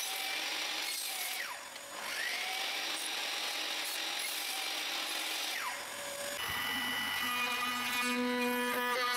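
Miter saw cutting through wood twice, each cut ending in a brief dip. About six seconds in it gives way to a handheld trim router running along the wood with a steady whine.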